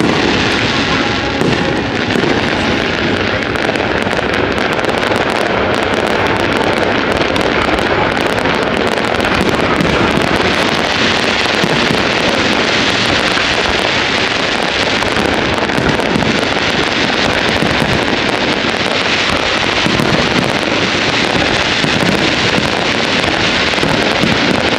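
Fireworks going off continuously as a dense, steady crackle, with no separate big bangs standing out.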